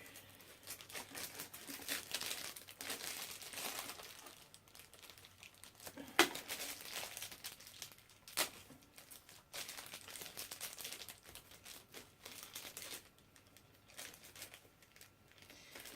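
Plastic packaging crinkling and rustling as the figure's stand pieces are worked out of their separate compartments, with two sharp clicks partway through.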